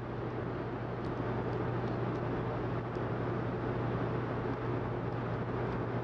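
Steady low hum and hiss, with a few faint, light ticks of a screwdriver and screws being driven into the side mounting holes of a 3.5-inch hard drive.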